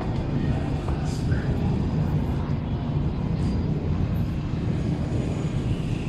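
Wind buffeting the microphone in an open belfry: a steady low rumble, with a few faint short chirps.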